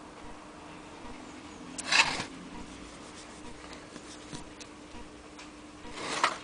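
Hands handling an antique Willcox & Gibbs sewing machine and its hand wheel: two short rustling scrapes, about two seconds in and near the end, with a few faint ticks between them over a low steady hum.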